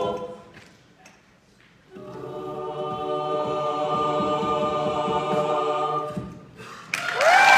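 A mixed-voice a cappella group sings a short chord that stops, then after a pause of about a second and a half holds a long final chord that swells and cuts off. Applause and cheering with whoops break out near the end.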